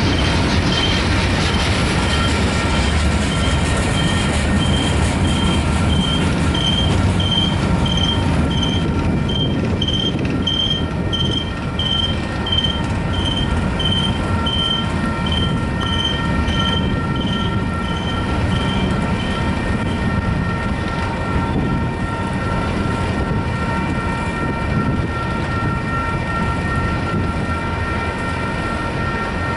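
Double-stack container cars of a freight train rolling steadily past, their wheels squealing with several steady high tones. A grade-crossing bell rings a little faster than once a second and stops about two-thirds of the way through.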